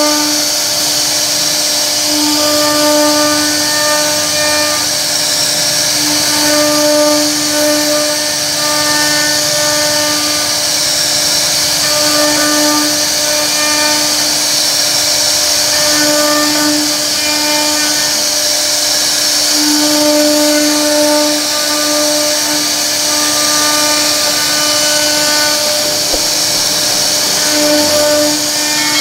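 CNC router spindle carving a relief pattern into a wooden door panel: a steady high-pitched whine over a constant hiss of cutting. The tone swells and fades every second or two as the bit moves through the wood.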